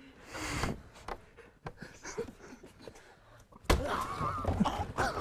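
A cream cake slapped into a man's face: a sudden wet thud about three and a half seconds in, followed by loud voices.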